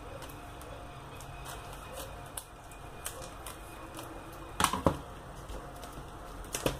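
Plastic CD jewel cases handled on a table: light clicks and rubbing as a case is turned over, with two sharper clicks about two-thirds of the way in.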